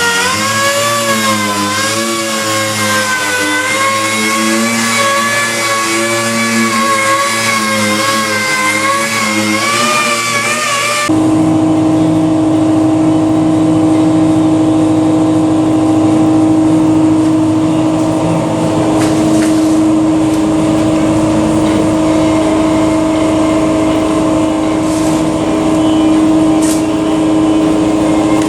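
Machinery running steadily, its pitch wavering slightly. About eleven seconds in, an abrupt cut brings a different steady machine hum.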